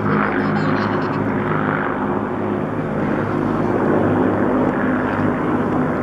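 Avro Lancaster bomber's four Rolls-Royce Merlin V12 piston engines running steadily with a deep propeller drone as the aircraft flies past and away.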